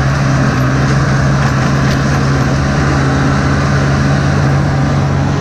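Snowmobile engine running at a steady speed while under way, with an even, constant rush of noise over it.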